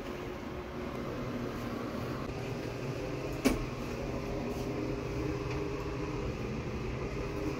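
Steady low hum of a household machine running, with a single sharp click about three and a half seconds in.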